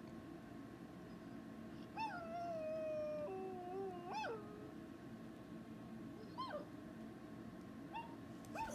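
Dog howls and whines played through a laptop speaker: a long falling howl about two seconds in, a lower held note right after, then a few short rising whines.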